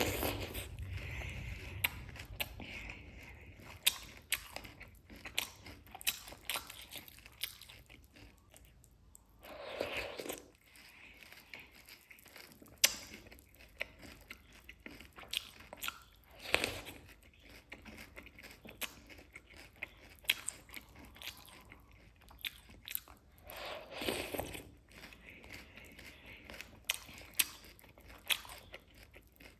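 Close-miked eating: a person biting and chewing cake with crunchy Chocos, many sharp crunches throughout, with louder bites near the start and about ten, sixteen and twenty-four seconds in.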